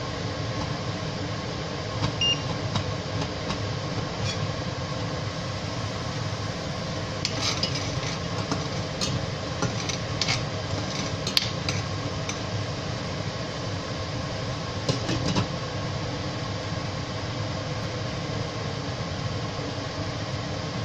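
A spoon and a glass lid clinking against a steel cooking pan as simmering curry is stirred. The clinks come in scattered strikes, bunched from about seven to twelve seconds in and again around fifteen seconds, over a steady hum.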